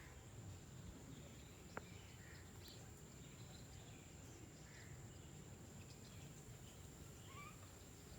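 Near silence: a low background rumble with a few faint bird chirps, a steady high-pitched tone, and a single click nearly two seconds in.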